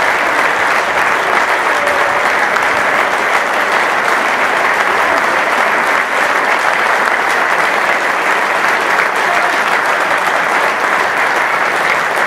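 Steady applause from many people clapping at once: a line of footballers and a crowd applauding together.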